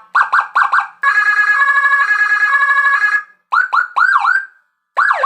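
Whelen Euro 60-watt electronic siren module sounding through a horn loudspeaker, stepping through several tone patterns: a few rapid chirps, a steady warbling tone for about two seconds, then three falling whoops, and near the end fast repeated downward sweeps.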